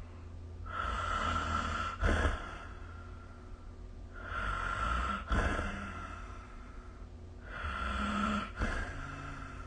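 A person snoring: three rasping snores about three and a half seconds apart, each lasting about a second and a half and ending in a short, sharp snort.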